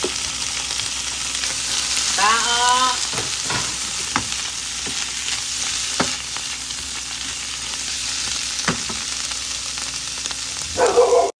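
Sliced mushrooms sizzling in oil in a ceramic-coated frying pan while a spatula stirs them, with a few sharp clicks of the utensil against the pan. A short wavering cry comes about two seconds in, and a louder one just before the end.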